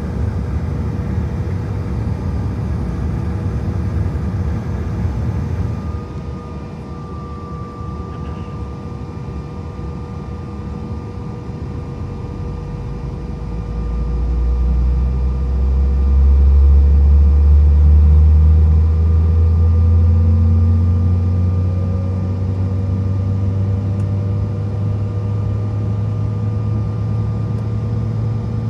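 Inside the cabin of a CRJ-900, a rear-mounted GE CF34 turbofan starting up: a whine that slowly rises in pitch through the second half, with a low rumble that swells about halfway through and then eases, over steady cabin air noise and a steady hum.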